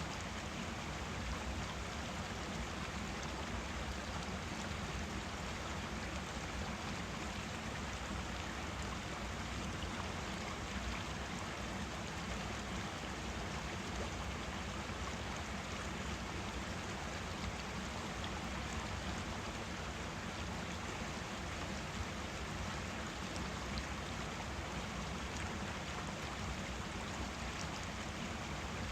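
Forest stream flowing: a steady, even rush of running water.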